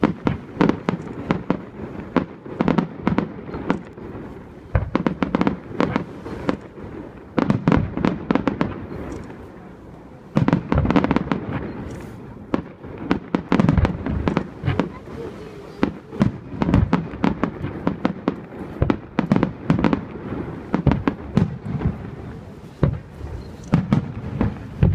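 Fireworks display: shells bursting in rapid, irregular volleys of bangs and crackles, with short lulls between the volleys.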